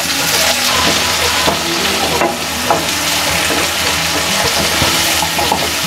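Chopped tomatoes frying in hot oil with sautéed onions in a pan: a steady, loud sizzle that swells as they are tipped in at the start.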